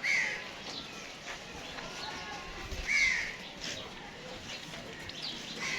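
Two short, high animal calls about three seconds apart, each falling slightly in pitch, over faint background voices.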